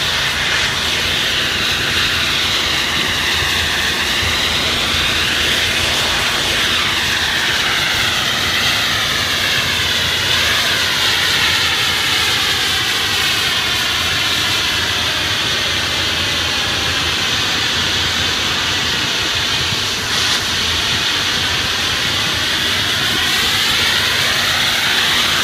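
Hot-water pressure washer spraying a high-pressure jet at close range onto a wall to melt off dripped paint: a loud, steady hiss with the machine's engine and pump humming underneath. The hiss's tone sweeps slowly up and down.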